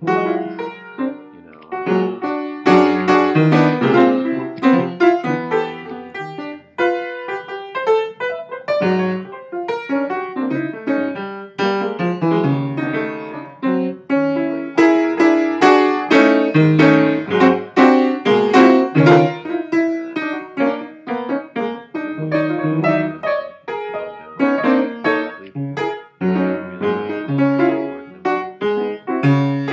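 Piano music: a busy stream of quick notes and chords that goes on without a break.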